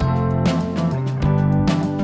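Background music: plucked guitar with steady note changes.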